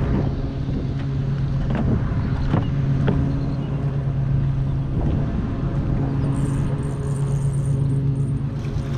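Jon boat's trolling motor humming steadily as the boat is moved to a new angle on the dock, with a few sharp clicks in the first few seconds.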